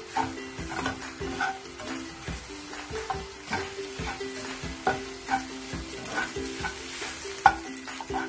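Slotted spatula scraping and tapping in a non-stick frying pan, breaking up and stirring scrambled egg as it fries. The strokes come irregularly, about twice a second, with one sharper knock near the end.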